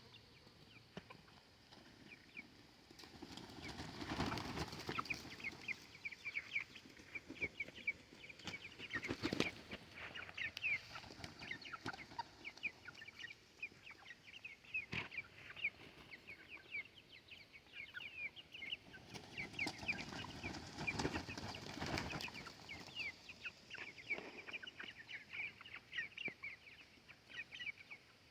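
A flock of chickens clucking with many quick, high calls, broken a few times by louder rustling swells and sharp knocks.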